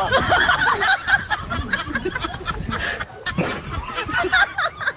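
Laughter, in short wavering bursts throughout.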